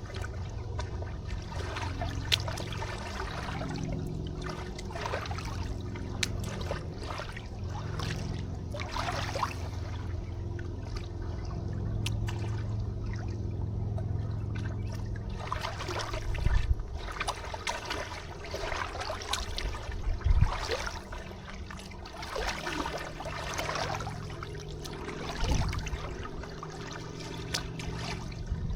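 River water trickling and lapping in short splashes over a steady low rumble, with a few dull thumps in the second half.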